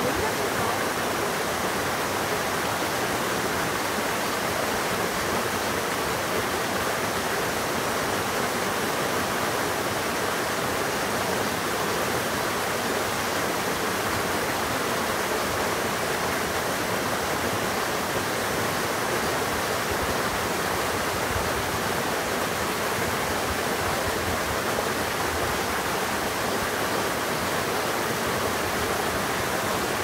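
Small waterfall spilling over boulders into a rocky pool of a mountain stream: a steady, even rush of falling water.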